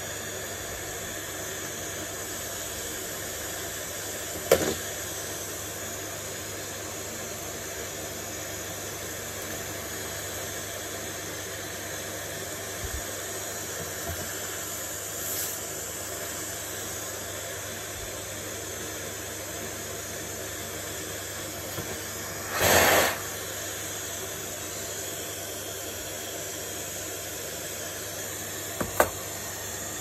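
Steady background hiss with scattered handling noises from work on a cordless vacuum's plastic floor nozzle: a sharp click about four seconds in, a louder scrape lasting about half a second a little past the middle, and another click near the end.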